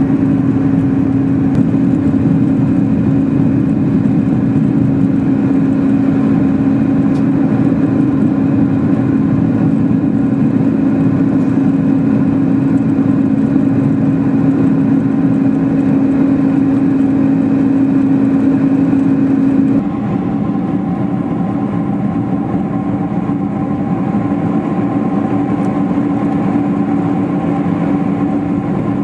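Steady mechanical drone of a running vehicle with a strong low hum. About twenty seconds in it changes abruptly: it becomes a little quieter and higher steady tones come in.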